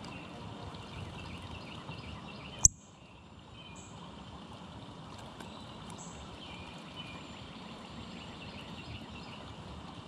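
Steady outdoor background hiss with faint, high-pitched bird chirps here and there. One sharp click, the loudest sound, comes about two and a half seconds in.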